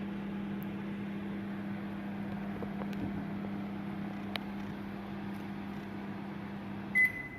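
Microwave water-heating unit running with a steady electrical hum, then a short high beep about seven seconds in.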